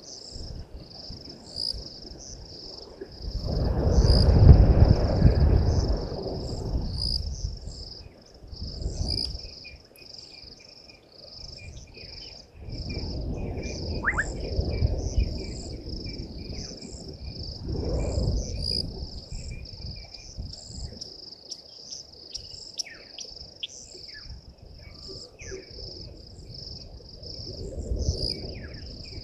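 Crickets chirping in a steady fast pulse throughout, joined by a second, lower insect trill for a while in the middle. Gusts of wind rumble on the microphone, loudest a few seconds in, again midway and near the end, and a few short bird calls sound in the second half.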